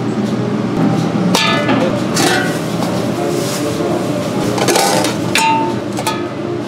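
Stainless steel steam-table pan lids being lifted and set back down, clinking and clanking against the pans several times, each knock ringing briefly.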